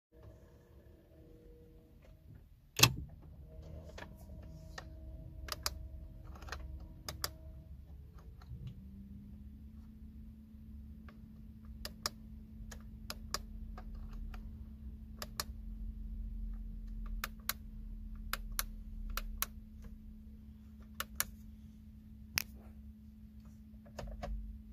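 A string of sharp, irregular clicks from the buttons and stalk controls in a Porsche Macan's cabin as they are pressed to work through the instrument-cluster settings menu, the loudest about three seconds in. A steady low hum comes in about a third of the way through.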